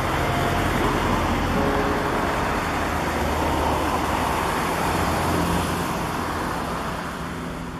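Road traffic noise: a steady rush that swells around the middle and eases off near the end.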